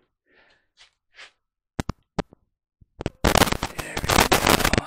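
Handling noise from the camera rig being set down and adjusted: two sharp clicks, then a loud, rapid crackling clatter starting about three seconds in.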